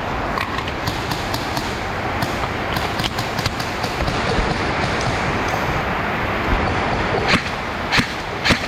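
Steady noisy hiss with scattered faint clicks, then three sharp cracks near the end, about half a second apart: airsoft guns firing single shots.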